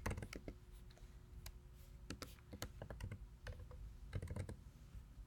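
Faint keystrokes on a computer keyboard: scattered single taps, then a quick run of several about four seconds in.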